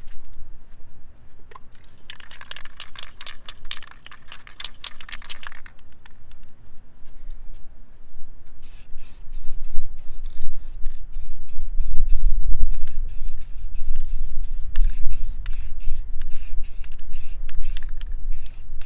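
Aerosol spray-paint can: a few seconds of dense rattling as it is shaken. Then, after a pause, a run of short hissing spray bursts, about two a second, as black paint goes onto a chrome car wheel. A low rumble sits underneath, loudest around the middle of the spraying.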